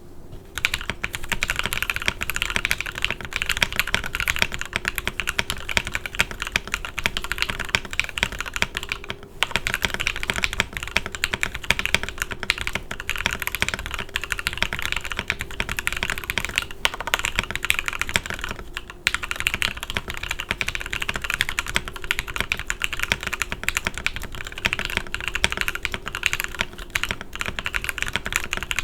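Steady, fast typing on a Photon mechanical keyboard with factory-lubed Gateron EF Curry linear switches, NicePBT keycaps and a polycarbonate plate, with no foam in the case. The typing stops briefly about nine and nineteen seconds in.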